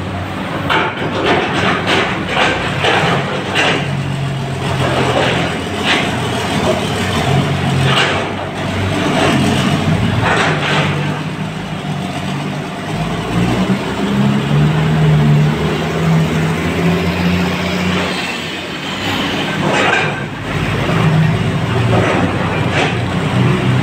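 Diesel engines of a tipper truck and an excavator running inside a rock tunnel, the engine pitch rising and falling. Rock muck clatters into the truck's steel tipper body during the first half and again near the end.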